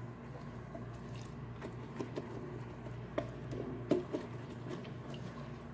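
Silicone pastry brush dabbing oil onto samosa pastry and the oiled basket of an air fryer: soft wet squishes and a few light taps, the sharpest about four seconds in, over a steady low hum.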